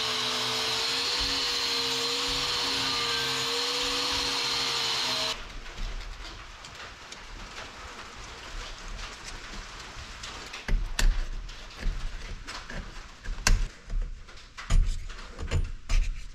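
An angle grinder with an abrasive disc runs steadily against a bronze windlass part, with a steady whine, then stops abruptly about five seconds in. After that come scattered clunks and clacks as the bronze windlass parts are handled and wiped on a wooden workbench, louder and busier in the second half.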